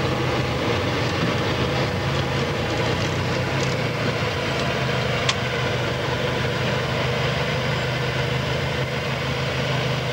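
City street traffic: vehicle engines running steadily, with a constant low hum and one sharp click about five seconds in.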